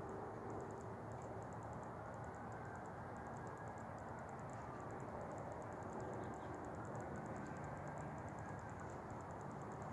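Outdoor ambience: a steady low hum of distant road traffic, with a high, rapid insect ticking repeating in short trains throughout.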